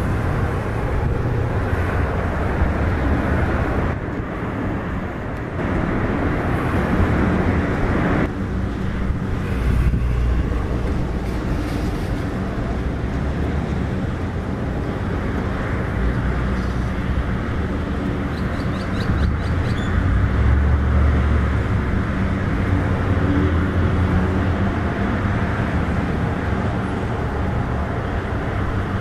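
Airport ambience: a steady low rumble of distant jet aircraft and traffic, mostly low-pitched. It dips and jumps abruptly a few times as the shots change.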